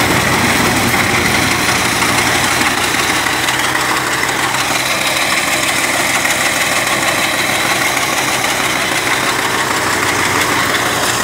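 Wheat thresher running steadily, the drone of its driving engine mixed with the whir of the drum and fan and the hiss of chaff and straw being blown out.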